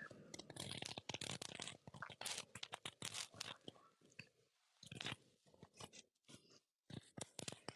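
Dense crackling and clicking close to the microphone, thinning out to scattered clicks after about four seconds.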